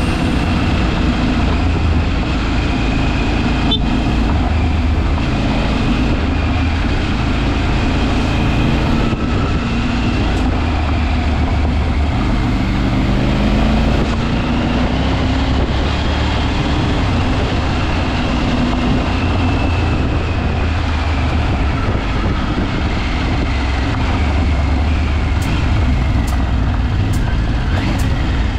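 A vehicle engine running under way, a steady low rumble whose pitch drifts up and down as the revs change. There are a few sharp clicks near the end.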